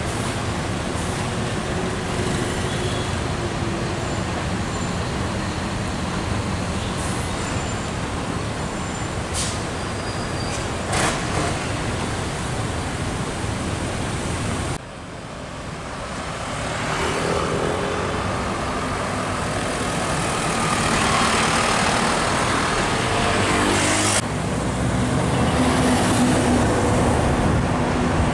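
Road traffic with heavy trucks and cars passing close by: a continuous rumble of diesel engines and tyres. About halfway through it drops off suddenly, then builds again as a heavy vehicle's engine draws nearer.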